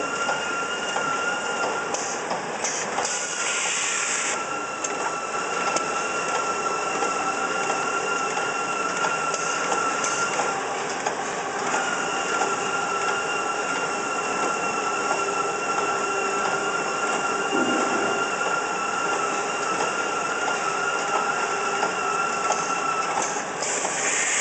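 Pocket-tissue automatic packing line running: a steady machine clatter with a constant high whine, and a louder hiss about two to four seconds in and again near the end.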